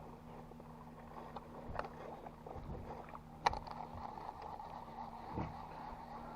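Faint sounds aboard a small fishing boat on still water: a steady low hum runs throughout, with a sharp click or knock about 2 seconds in, a louder one about 3.5 seconds in, and a soft low thud near the end.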